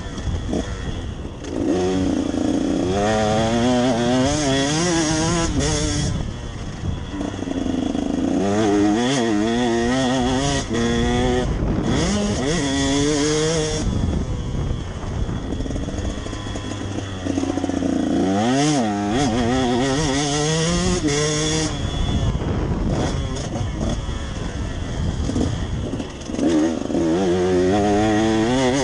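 Motocross bike engine heard from on the bike, revving up hard again and again in rising steps as the rider shifts through the gears, then dropping back as he rolls off the throttle, over a steady rush of wind and hiss.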